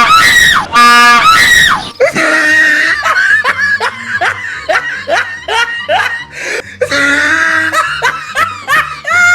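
Two loud, shrill screams in the first two seconds, each held steady and falling in pitch at the end. Then rapid, repeated high-pitched laughter over a low bass line.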